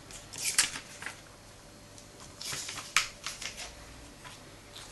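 Glossy paper pages of a comic book being handled and turned: two bouts of crisp rustling, each with a sharp snap, about two and a half seconds apart.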